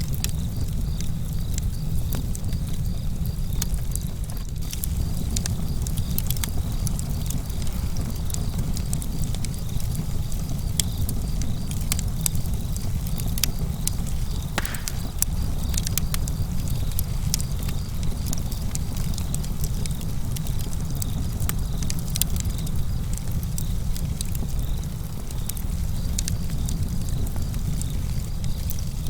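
Fire burning in a fireplace: a steady low rumble with frequent sharp crackles and pops.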